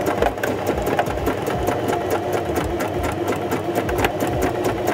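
Singer domestic electric sewing machine running steadily at an even speed, its needle making rapid, even strokes as it sews a zigzag stitch joining the two ends of a waistband elastic.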